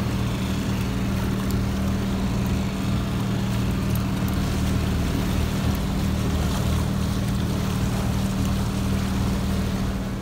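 Outboard motor of a small sailing yacht running steadily at an even pitch, with wind and water noise over it.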